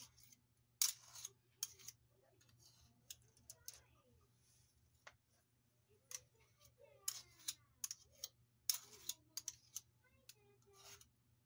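A spoon scraping and clinking against a glass bowl as sticky cookie dough is scooped out, making a scatter of sharp clicks in small clusters, with soft dabs as mounds of dough are set on a parchment-lined baking sheet.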